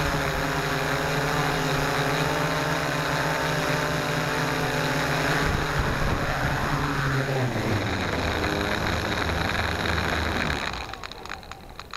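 S650 hexcopter's electric motors and propellers whirring steadily as heard from its onboard camera, the pitch dropping as it comes down and lands. Near the end the motor sound falls away, leaving wind and soft crackling of grass against the microphone.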